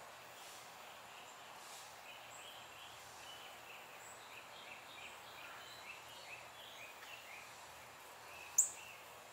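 Faint outdoor garden ambience: a low steady hiss with many short scattered bird chirps, and one sharp, high, rising chirp near the end that is the loudest sound.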